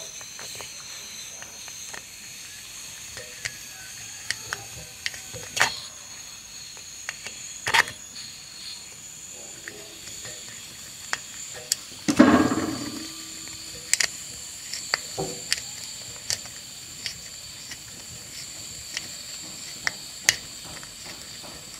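Nitrogen hissing steadily from an open copper tube on a chest freezer's compressor, a faint hiss with thin high whistling tones, while a hand deburring tool scrapes and clicks as it is turned in the tube end. The nitrogen purge keeps the shavings from getting into the system. A louder rough scrape or bump about twelve seconds in.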